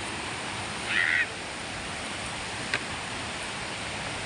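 Steady rushing of a waterfall, with a short high cry about a second in and a sharp click near the end.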